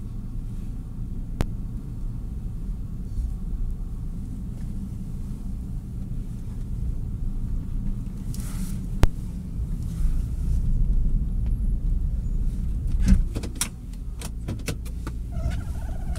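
Car engine running with the steady low rumble of the car creeping slowly through snow. A few sharp clicks and knocks come near the end.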